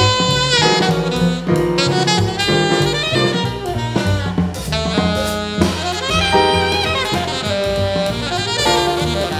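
Live jazz: an alto saxophone playing a fast-moving line of notes, accompanied by upright bass and drum kit with cymbals, as part of a piano trio.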